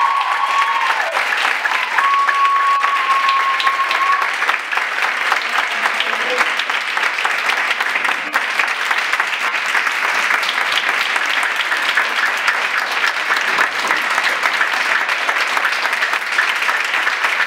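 Audience applauding, dense and steady clapping throughout. A held tone ends about a second in, and another sounds briefly a couple of seconds later.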